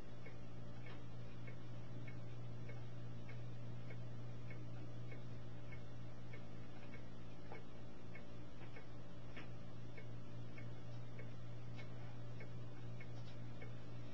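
A steady low hum with scattered, irregular faint clicks over it.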